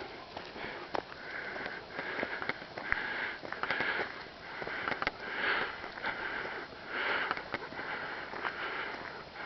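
Hard, rhythmic breathing close to the microphone, a noisy puff about every two-thirds of a second, with scattered light clicks between the puffs.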